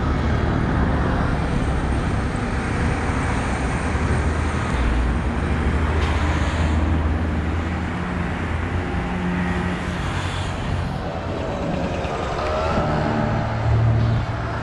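Diesel multiple unit's engine running with a steady low rumble as the train creeps along the platform. Its engine note rises near the end.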